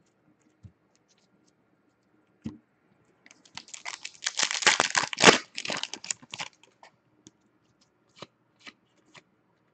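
Foil wrapper of a hockey card pack being torn open and crinkled, a dense rustling that starts about three seconds in and dies away after about three seconds. Faint clicks of cardboard cards being handled come before and after it.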